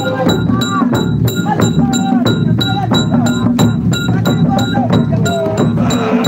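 Large shoulder-slung hand drums beaten in a steady rhythm, about four strokes a second, while a group of men sing together.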